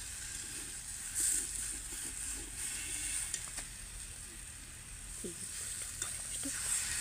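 Broccoli and egg frying in a wok over a wood fire, a steady sizzle, with a few sharp clicks of the steel spatula against the pan. Near the end water is poured into the hot pan and the sizzle swells into a steamy hiss.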